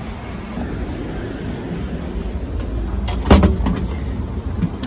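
Steady low rumble of vehicle traffic, with one sharp knock about three seconds in.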